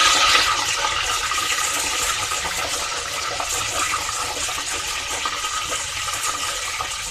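Curry leaves sizzling and crackling in hot oil with mustard and cumin seeds, a tempering in a clay pot. The sizzle is strongest at first and slowly dies down.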